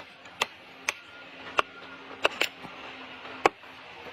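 Wood being chopped: a run of sharp, irregularly spaced strikes, about seven in four seconds.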